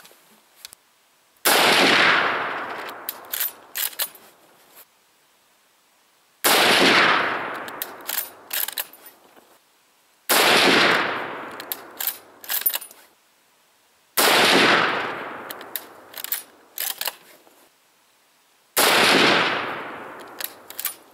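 Mosin-Nagant 91/30 bolt-action rifle in 7.62x54R fired five times, about four to five seconds apart, each loud shot trailing off in a long echo, with sharp clacks of the bolt being worked between shots.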